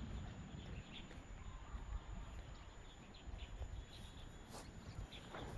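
Quiet outdoor background noise: a low, steady rumble with a few faint high ticks near the end.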